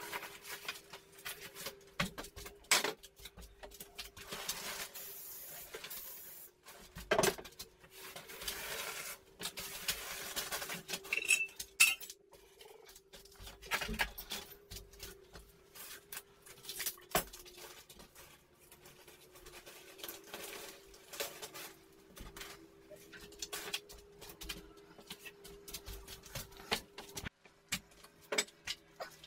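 Hand tools working: irregular metallic clinks and knocks, a few of them sharp and loud, with several stretches of scraping a few seconds long, over a faint steady hum.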